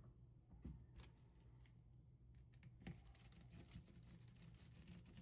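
Faint clicks and light rustling of small parts being handled on a work surface: a few separate taps, then a stretch of soft rustling near the middle.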